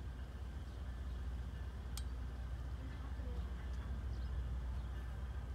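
Rail grinder train approaching in the distance: a low, steady rumble that grows slowly louder, with a single sharp click about two seconds in.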